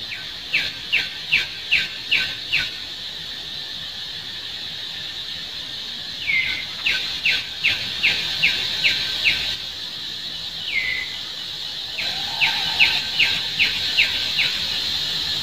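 A bird calling in three bouts of about six quick, short, downward-sliding notes each, with a longer falling note leading into the second and third bouts. A steady high drone runs underneath.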